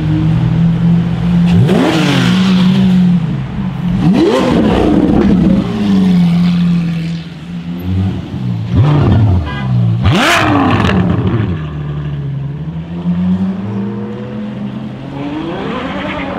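Ferrari F12berlinetta's 6.3-litre V12 with a Capristo exhaust idling and being revved hard about five times, each rev rising quickly and dropping back to idle; the loudest comes about ten seconds in.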